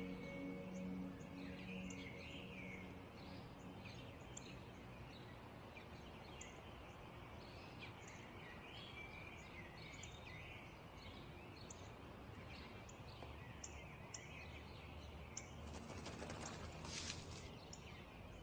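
Quiet garden ambience: small birds chirping and twittering in short scattered calls over a faint steady hiss. Near the end there is a brief rustle.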